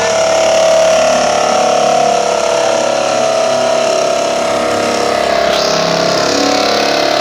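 Sencan electric jigsaw running steadily as its blade cuts through the wall of a plastic drum, a constant motor whine.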